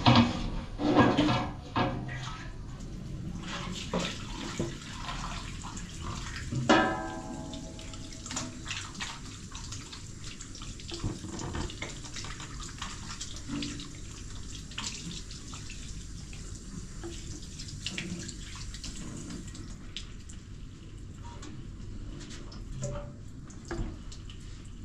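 Tap water running into a bathroom washbasin while a large metal tray is scrubbed in it by hand, with repeated knocks and clatters of the tray against the basin. About seven seconds in, the tray rings out once when struck.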